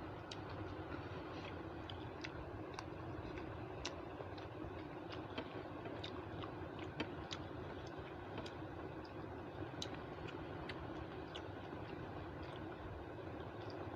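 Eating by hand: fingers mixing rice and chicken curry on a steel plate and chewing make irregular small clicks and smacks, over a steady low hum.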